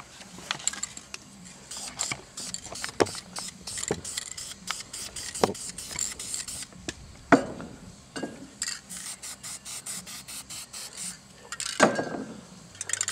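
Mylar stencil sheet crinkling and knocking as it is handled and pressed flat, with short sprays of aerosol paint through it.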